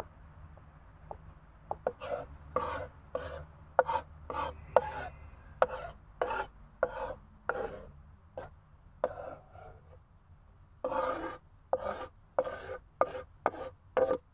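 Knife blade scraping across a wooden cutting board, pushing chopped tomato into a metal dish: a run of short rasping strokes, about two a second, with a pause about eight seconds in.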